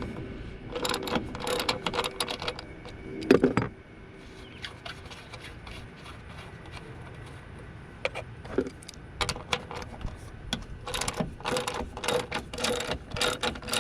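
Socket ratchet clicking in quick bursts while loosening the nuts on top of the strut mount, with a single heavy metal knock about three seconds in. The middle of the stretch is quieter, and the clicking picks up again near the end.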